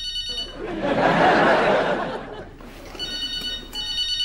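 Studio audience laughing, loudest in the first two seconds, between rings of a telephone. The ring is an electronic trill of several steady tones, heard briefly at the very start and again for over a second near the end.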